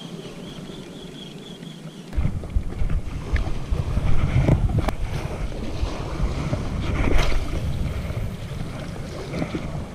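Wind buffeting a chest-mounted action camera's microphone: a gusty low rumble that comes up sharply about two seconds in, with a few small knocks mixed in.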